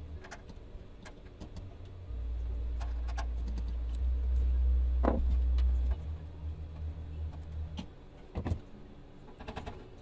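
Small plastic clicks and rattles of a water heater's D-cell battery holder being pulled off and handled, under a low rumble that swells about two seconds in and drops away about six seconds in.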